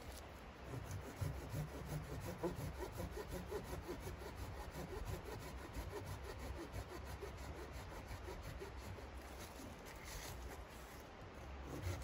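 Hand saw cutting into a tree branch, rasping in steady back-and-forth strokes.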